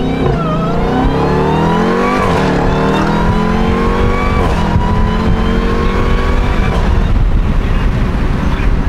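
Jeep Grand Cherokee Trackhawk's supercharged 6.2-litre Hemi V8 accelerating hard, heard from inside the cabin. The engine note climbs in pitch, drops with upshifts about two seconds in and again midway, climbs again, then eases off into road noise near the end.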